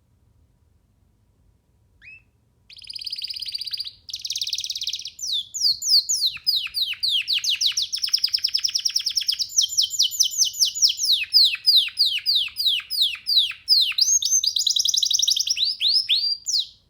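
Young canary singing: a short high note about two seconds in, then a long song of buzzy rolls and rapid runs of repeated falling notes.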